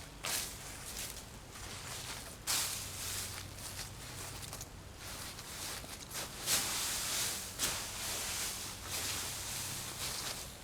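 Footsteps and rustling through dry weeds and grass, in irregular bursts, over a faint steady low hum.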